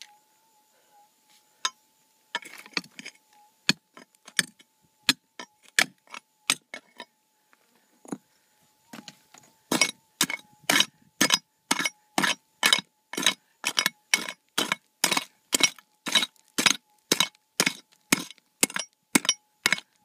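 A prospector's pick strikes rocky ground and bedrock while digging. A few scattered blows come first, then from about ten seconds in a steady run of sharp clinking strikes, about three a second.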